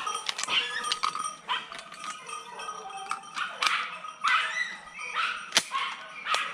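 Jagdterriers barking several times in thick brush, with the rustle and snap of leaves and twigs as someone moves through the undergrowth.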